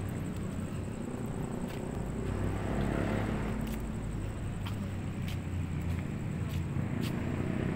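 Steady low rumble of distant city traffic, with a few faint clicks over it.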